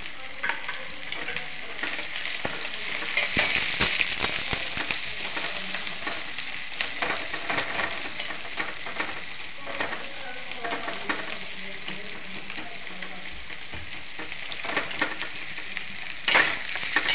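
Sliced onions and chopped green chillies sizzling in hot mustard oil in an aluminium kadhai, with a perforated metal spatula scraping and clinking against the pan as they are stirred. The sizzle is loudest about three to five seconds in.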